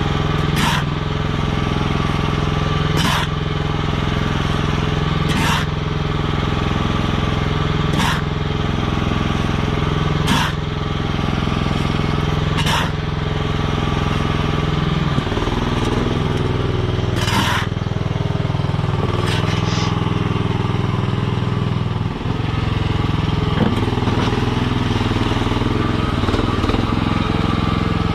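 Small engine of a Chinese mini skid steer running steadily under work, its note changing about halfway through and dipping briefly later. Short sharp sounds cut through it about every two and a half seconds in the first half, with a few more near the end.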